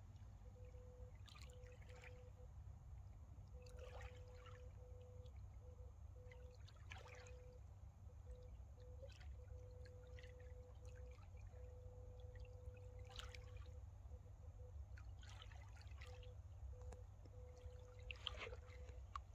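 Faint lapping of small waves at the lake's edge, soft splashy ticks every second or two over a low rumble, with a thin faint hum that comes and goes.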